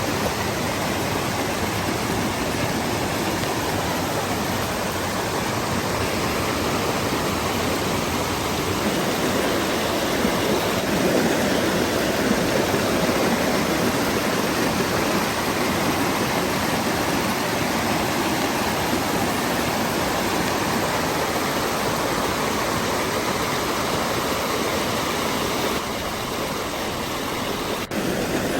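Waterfall: water pouring and splashing steadily over rocks in an even, loud rush.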